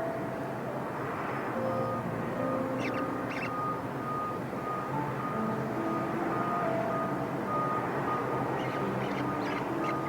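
A vehicle's reversing alarm beeping steadily, about two to three beeps a second, starting about two seconds in, over a steady engine and traffic rumble. A few short high chirps come in around three seconds and again near the end.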